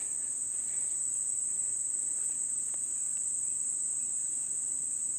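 A steady, high-pitched insect chorus drones on without a break.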